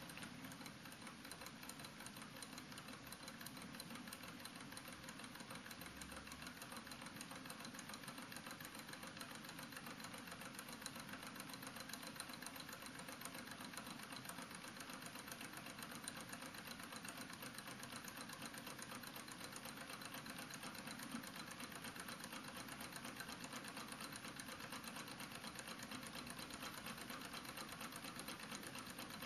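Twin-cylinder Stirling model engine running steadily; its pistons and scotch-yoke linkage make a faint, fast, even mechanical ticking. It runs in reverse off a block of ice: the ice chills the bottom plate and the top plate acts as the warm side.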